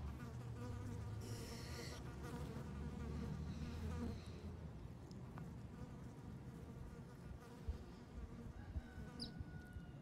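A flying insect buzzing, its drone wavering in pitch as it circles, loudest for the first few seconds and fainter after. A short high chirp sounds about a second and a half in.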